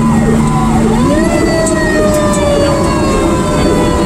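Fire engine siren heard from inside the cab while the truck is under way. A steady low tone gives way about a second in to a rising wail, which then slowly falls in pitch, over the rumble of the engine and the road.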